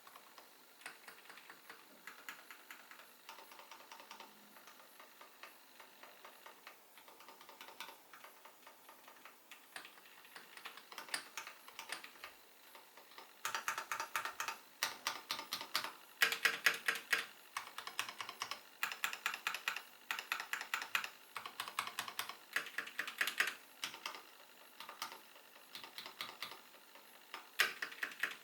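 Typing on a Kono 84 mechanical keyboard with pre-lubed Gateron Milky Yellow linear switches, lubed stabilizers and a foam-filled case: a stream of quick keystroke clacks, lighter at first, then louder, faster bursts from about halfway through.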